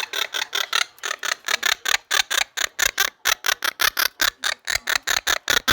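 Pet parrot making a rapid, even run of short clicks, about eight a second, that stops abruptly near the end.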